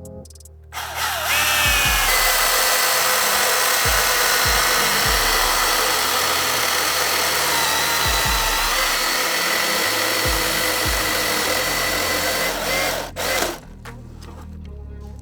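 Milwaukee M18 battery chainsaw starting about a second in and cutting into wood for about twelve seconds, a steady electric-motor whine under the chain noise. It stops abruptly near the end. Background music with a low beat runs underneath.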